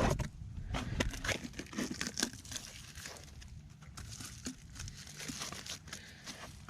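Packaging crinkling and tearing as a new hydraulic filter is unwrapped by hand: a run of irregular rustles and small clicks, busier in the first couple of seconds and thinning out after.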